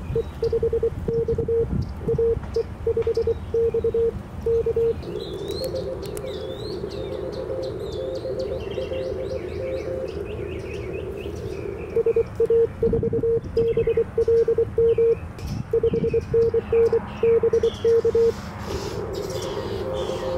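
Morse code on 20-metre CW through an Icom IC-705: a loud keyed tone of about 500 Hz, the operator's own sending heard as sidetone, gives way about five seconds in to a fainter station answering through the receiver's hiss. The loud keying returns about twelve seconds in and the fainter reply again near the end. Birds chirp through the second part over a low wind rumble on the microphone.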